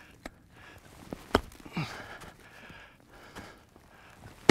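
Ice climbing tools striking into snow-covered ice: a few light taps and one sharp strike about a second and a half in, with another near the end. The climber is breathing hard, with a short grunt just after the loud strike.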